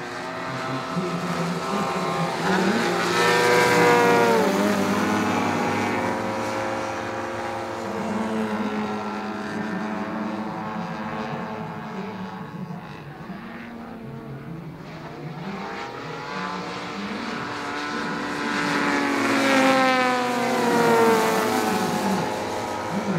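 Engines and propellers of several radio-controlled 3D aerobatic model planes flying together. The sound swells to two loud passes, about four seconds in and again near the end, with the engine note dropping in pitch as the planes sweep by.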